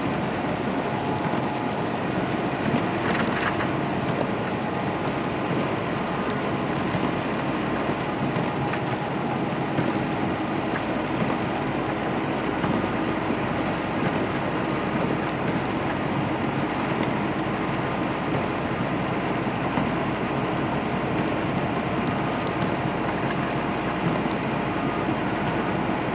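Semi truck under way, heard from inside the cab: a steady engine drone mixed with tyre hiss on wet pavement.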